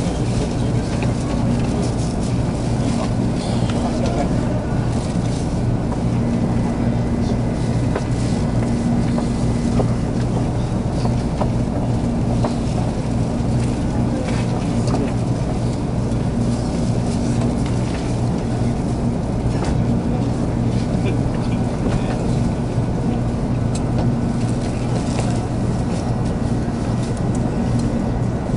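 Busy train-station platform ambience: a steady low hum under the chatter of a waiting crowd, with occasional faint clicks and footsteps.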